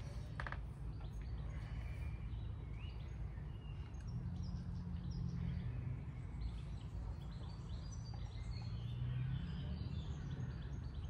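Small birds chirping off and on over a steady low background rumble.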